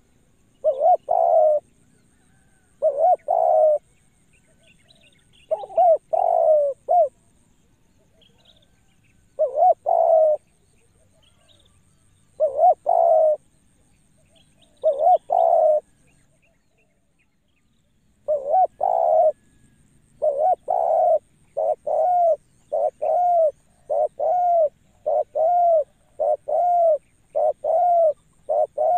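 Spotted dove (tekukur) cooing: low coos given in spaced phrases, then after a short break a quicker, even run of about one coo a second.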